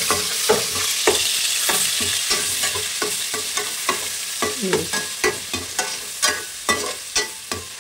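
Onion paste sizzling in hot oil in a stainless steel pot while a metal slotted spoon stirs it, scraping and clinking against the pot about twice a second. The sizzle eases off gradually.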